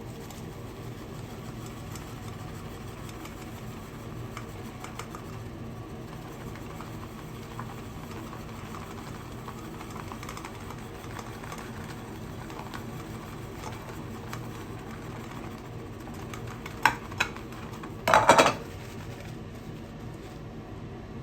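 Shaving brush swirling and whipping soap into lather, a steady swishing, with two sharp knocks and then a louder brief clatter near the end.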